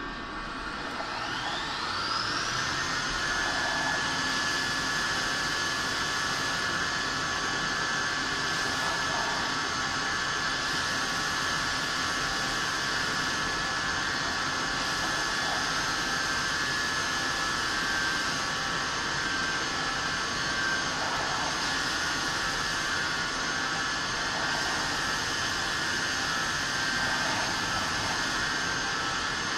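CNC milling machine spindle speeding up with a rising whine over the first two or three seconds, then running at a steady high pitch as it mills a plastic part, with coolant spray hissing.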